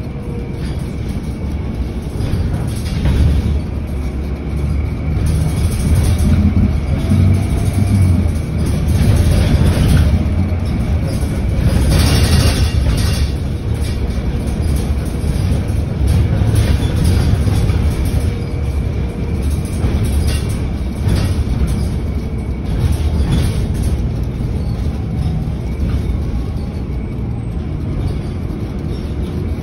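Interior noise of a moving city bus: a steady low engine and road rumble with cabin rattles, and a brief louder clatter about twelve seconds in.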